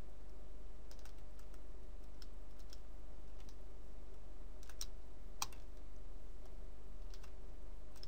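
Scattered, irregular computer keyboard and mouse clicks, about a dozen, over a steady low electrical hum.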